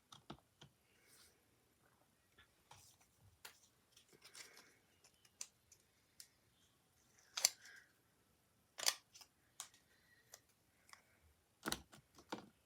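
Faint, scattered small clicks and papery rustles of heart stickers being peeled off their sheet and pressed onto a box, with a few sharper ticks about seven and nine seconds in and near the end.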